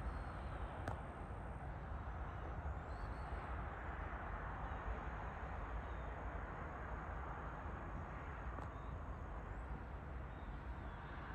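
Early-morning farmland ambience: a steady low rumble and hiss of open air, with a few faint high chirps and one small click about a second in.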